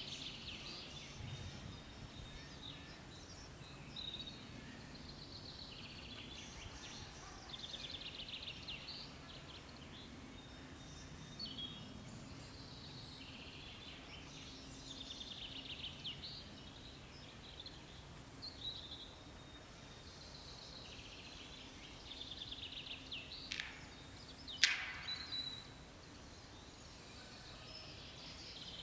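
Woodland songbirds singing faint, high trilled and chirping phrases again and again over a soft background hiss, with two sharp clicks about a second apart near the end.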